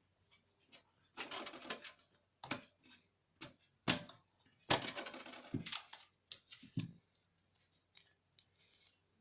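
Irregular clicks, taps and short scratchy rustles of a small amplifier board being handled and set in place inside a computer case, with two longer scraping stretches about a second in and about five seconds in.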